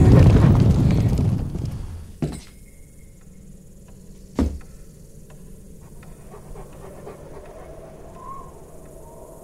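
A dog panting and sniffing hard, fading out about two seconds in. Then a light click and, about four and a half seconds in, a single sharp knock of a boot step on a wooden floor, over a faint low hum.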